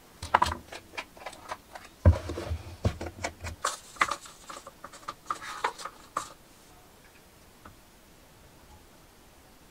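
Light clicks, taps and knocks of paper cups being pulled apart from a stack and set down on a plywood board, with a heavier knock about two seconds in. The handling stops about six seconds in.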